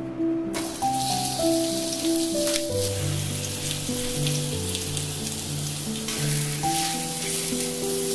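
Sliced onions sizzling in hot oil in a stainless steel skillet; the sizzle starts suddenly about half a second in, as the onions hit the oil. Background music plays underneath.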